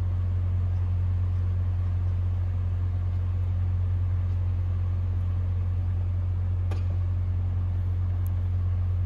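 Steady low mechanical hum, with a faint click about two-thirds of the way through.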